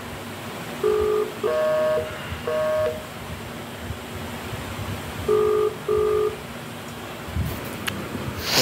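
Smartphone outgoing video-call tones while waiting for the other end to pick up: short electronic beeps, with a single beep about a second in, two longer chime-like tones just after, and a pair of beeps about five seconds in. A short, sharp noise near the end is the loudest sound.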